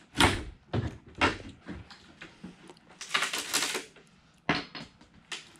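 Wooden shipping crate being pried open with a hammer: a series of sharp knocks and clatters of the tool against the wood and the slatted lid, with a longer scraping creak about three seconds in.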